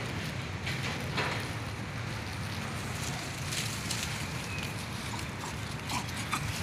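Steady outdoor background noise with a low rumble, broken by scattered faint clicks and rustles.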